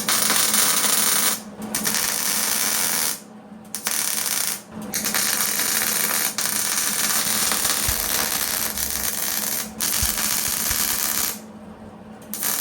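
Arc welder crackling and sizzling as an oxygen-sensor bung is welded into a steel exhaust pipe, in several welding runs of a second to five seconds each with short pauses between them, over a steady low hum.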